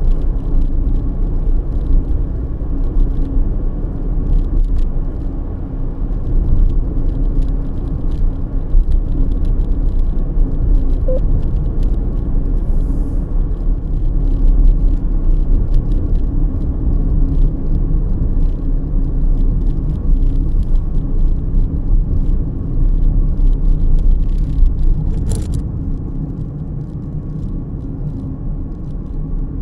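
Road noise of a car driving, heard inside the cabin: a steady low rumble of tyres and engine, with faint scattered clicks and one brief sharper noise near the end.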